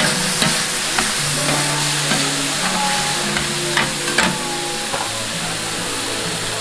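Chop steak sizzling and frying in a hot pan while it is stirred, with several sharp metal clinks from the spatula. Background music plays underneath.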